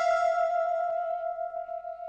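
The "awkward pause" meme sound effect: a single bell-like tone struck once, ringing on and slowly fading.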